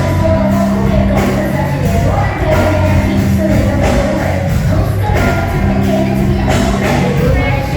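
Live band playing a mid-tempo R&B song with bass, drums and a sung vocal line, heard in a large concert hall.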